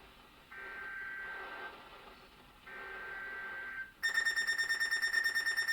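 NOAA Weather Radio EAS SAME digital header: two one-second bursts of high two-tone data screech about a second apart, part of the three-times-repeated code that opens a new alert. About four seconds in, a louder, rapidly pulsing high electronic alarm tone begins.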